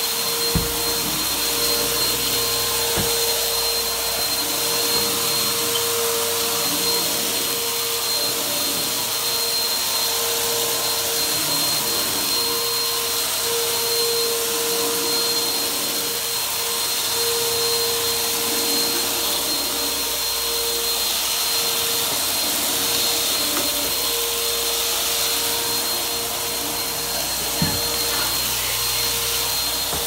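Bissell PowerForce Helix bagless upright vacuum cleaner running steadily while pushed over carpet: a steady whine over a rushing hiss. A few brief knocks come through, one just after the start and one near the end.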